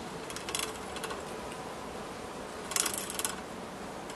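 Bicycle pedals turned by hand, the drivetrain giving two short runs of rapid ratchet-like clicking, one about half a second in and a longer one near three seconds. The e-bike kit's motor does not start.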